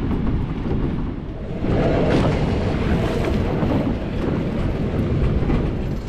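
Wind buffeting the microphone over the rush of flowing river water; the water grows louder about two seconds in as the microphone comes close to the surface.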